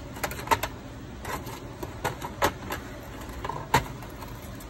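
Sharp metallic clicks and taps, about seven at uneven spacing, as long steel tweezers and a small cast silver piece knock against a sheet-metal baking tray. The loudest clinks fall about half a second in, halfway through, and near the end.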